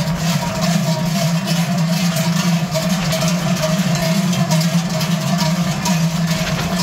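Many large Swiss Trycheln, cowbells carried on shoulder yokes, swung by a marching group of bell-carriers: a dense, continuous clanging with a steady low ringing underneath.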